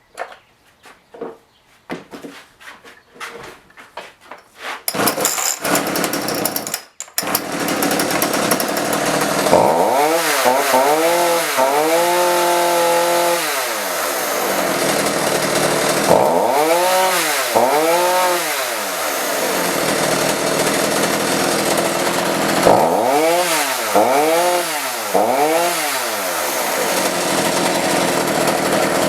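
Homelite 3514C two-stroke chainsaw sputtering into life about five seconds in, stumbling once, then running and being revved up and down in three groups of two or three quick blips, dropping back to idle between them. It revs cleanly now with fresh fuel and a new spark plug, its old fault having been a failing plug and stale gas.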